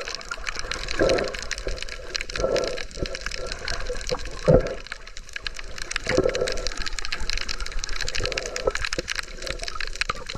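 Underwater bubbling during a scuba dive: a steady fizzing crackle with a low burst of bubbles every couple of seconds.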